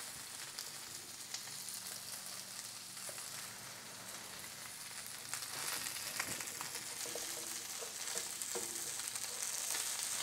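Pearl spot fish still sizzling in hot oil in a nonstick frying pan just after the gas is turned off, a steady hiss, with a few light scrapes and taps of a wooden spatula against the pan as the fish is lifted out.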